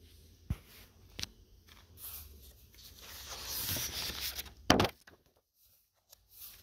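Spiral-bound sketchbook paper being handled and its pages turned: a couple of small clicks in the first second or so, a paper rustle that builds up, and one louder sharp rustle about two-thirds of the way in.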